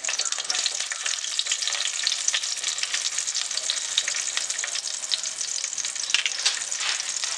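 Crushed garlic cloves sizzling and crackling in hot oil in a non-stick pan, stirred with a spatula during the first few seconds: the garlic browning for the tempering.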